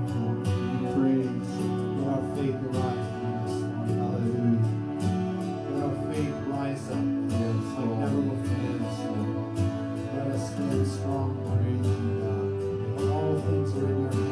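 Instrumental worship music with guitar: sustained chords with a steady strummed rhythm.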